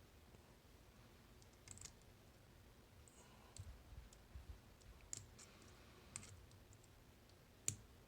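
Faint, scattered small clicks and light taps from working a dimple lock apart with tools, with a sharper click near the end.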